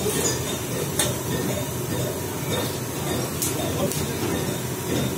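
Wood fire burning hard under a large steaming cauldron: a steady rumbling rush with a few sharp crackles.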